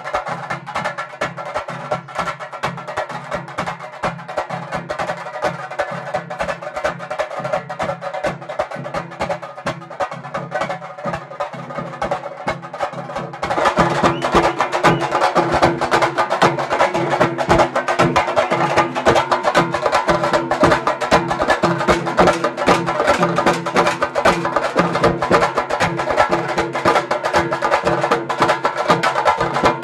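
Temple festival drum ensemble played with sticks, a fast, dense stream of strokes with a steady pitched drone under it. It gets louder and brighter about halfway through.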